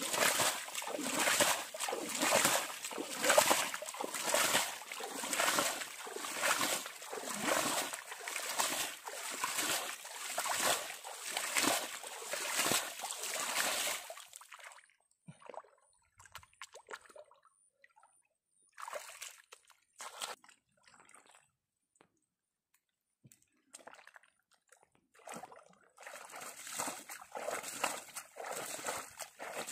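Muddy pond water scooped and flung by hand in a steady run of splashes, about three every two seconds, stopping about halfway through. Then a quiet stretch of small wet sounds from hands working mud, and the splashing starts again near the end.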